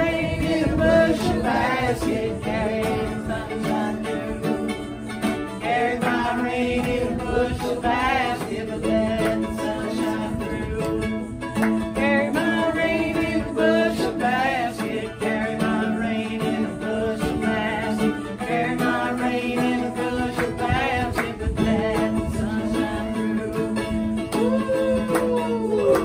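A woman singing a song while a ukulele and a mandolin-style instrument are strummed along in steady rhythm.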